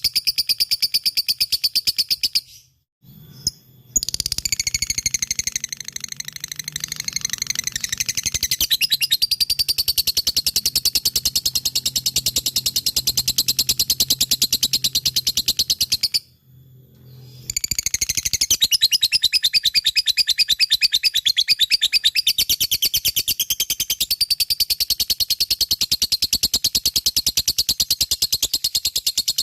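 Lovebird (Agapornis) in long 'ngekek' chattering: a fast, unbroken run of shrill chirps, the extended trill prized in Indonesian lovebird song contests. It breaks off twice briefly, about 3 s in and about 16 s in, then resumes.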